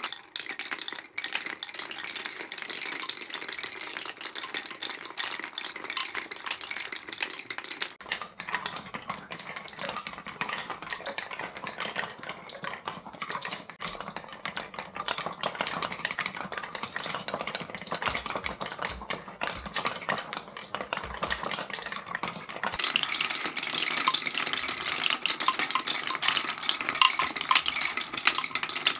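Many marbles rolling through the grooves of a wooden Cuboro marble run: a steady rolling rattle packed with clicks as the marbles knock against the wooden blocks and against each other.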